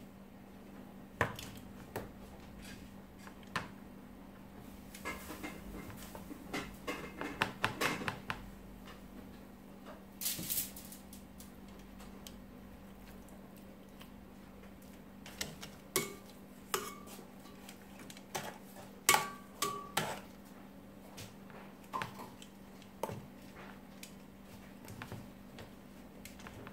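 Metal kitchen tongs clicking and clinking against a plastic tub and bowls while chicken pieces are dredged in flour. Irregular, scattered clicks, some ringing briefly, with a short rustle about ten seconds in, over a steady low hum.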